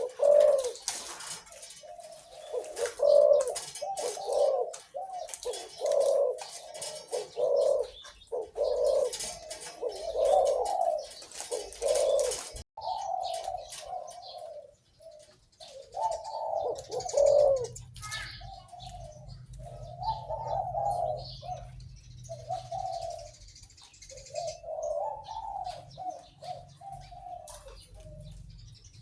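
A captive-bred dove cooing over and over in a long run of deep, repeated coo phrases, with higher bird chirps above it. A faint low hum comes in about halfway through.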